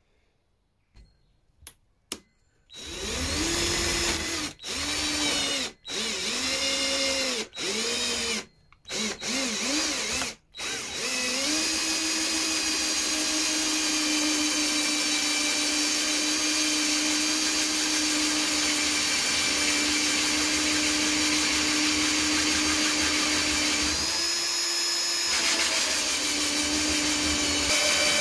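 Cordless drill turning a hole saw as it cuts through a sheet panel: a few clicks, then several short bursts on the trigger, each speeding up and slowing down, then a steady run at full speed for the rest.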